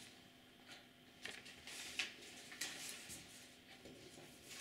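A paper slip being handled and pressed onto a flip-chart sheet: a few faint ticks and rustles over quiet room tone.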